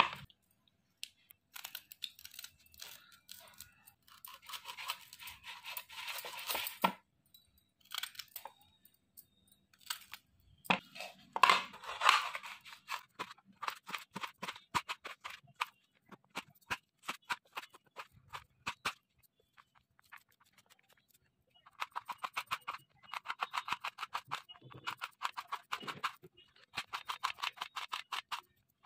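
Kitchen knife cutting vegetables against a plate: slicing and scraping through a tomato, then quick runs of sharp knife taps on the plate as green chillies are chopped into rings.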